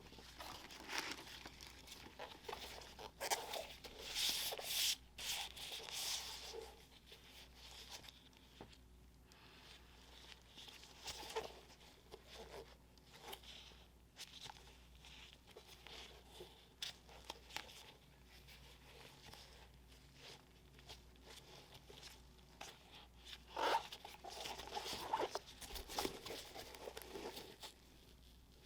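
Tissue paper crinkling and rustling as it is unfolded and handled during a shoe unboxing. The busiest spells come about a second in and again near the end, with softer handling in between.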